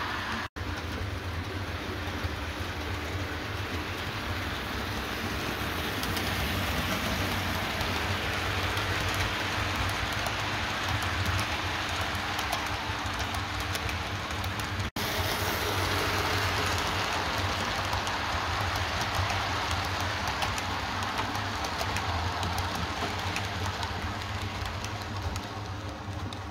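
OO gauge model train, a Bachmann GWR Hall Class locomotive hauling coaches, running along the track: a steady rumble of wheels on rail over a low hum. The sound drops out briefly twice, about half a second in and about halfway through.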